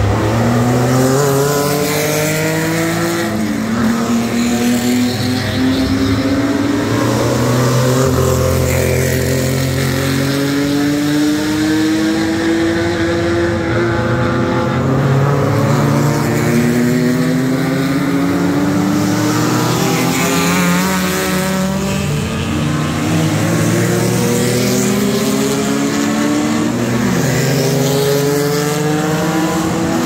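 Vintage racing sports cars with engines over 2 litres accelerating out of a corner and passing one after another. Their engine notes overlap and rise again and again as they pull up through the gears, with a sudden drop at a shift about three seconds in.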